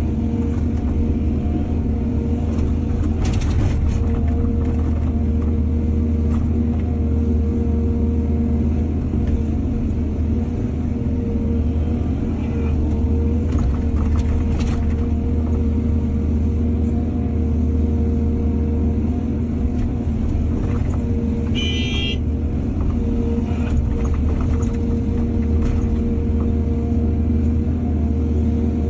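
Excavator's diesel engine running steadily while it works, with a few sharp metallic clanks and a brief high-pitched squeal about three-quarters of the way through.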